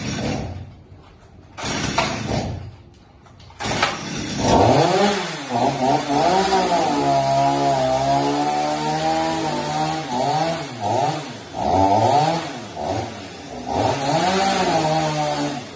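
Stihl MS 250 two-stroke chainsaw. After two short bursts it starts running about four seconds in, then is revved up and down again and again.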